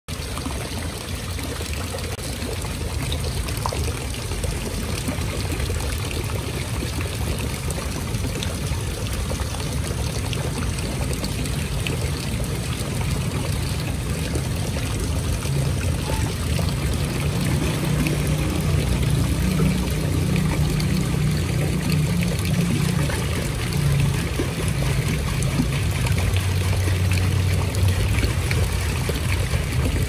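Water from small waterfalls and fountains spilling and trickling steadily into a garden koi pond, with a low rumble underneath.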